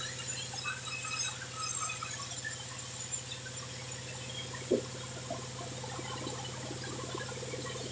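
Diesel-driven bandsaw mill running steadily with a constant hum, its blade giving two high-pitched squeals in the first two seconds as it cuts through a sengon log. A single sharp knock sounds about halfway through.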